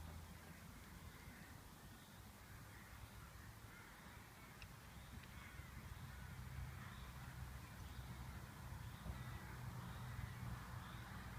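Crows cawing faintly over a low steady rumble.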